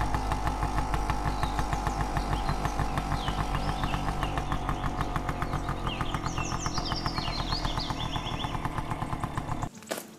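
Motor scooter engine running steadily with a fast, even pulse, cutting off abruptly near the end. A few high chirps sound about two-thirds of the way through.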